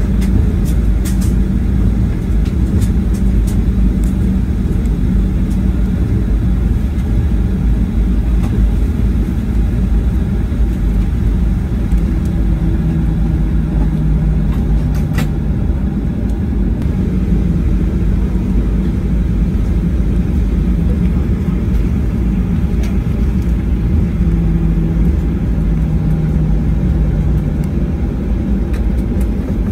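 Cabin noise of a Boeing 737-800 taxiing: a steady, loud low rumble from the CFM56-7B engines at taxi power and the gear rolling on the taxiway, with an engine hum that dips in pitch now and then and a few light clicks.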